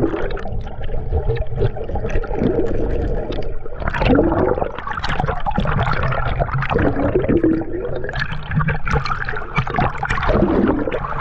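Sea water heard through a camera held underwater in shallow surf: a muffled, continuous gurgling and rushing, with bubbling sounds that rise and fall in pitch several times.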